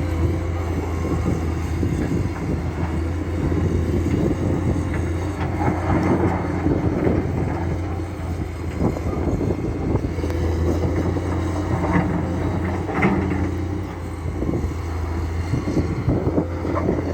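Komatsu excavator's diesel engine running steadily under load, with scattered clanks and scrapes from the working machine.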